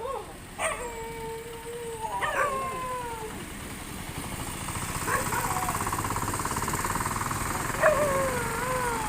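Street dog howling in four drawn-out calls, each starting with a sharp high yelp and settling into a held, slowly falling tone. A buzzing rattle runs under the third and fourth calls.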